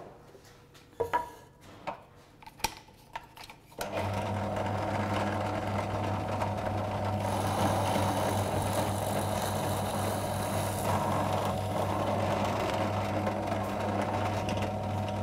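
A few knocks and clicks, then about four seconds in a small benchtop drill press motor starts and runs with a steady hum. From about seven to eleven seconds a steel twist bit for metal bores into a block of wood, adding a rougher, hissy cutting noise over the hum.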